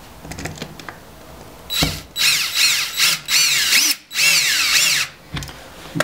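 DeWalt cordless drill/driver driving a T20 Torx screw in several short spurts, its motor whine rising and falling as the trigger is feathered to get the screw started.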